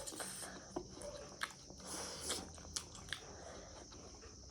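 Quiet chewing and eating of ramen and fried rice, with several soft clicks from spoon or chopsticks scattered through it.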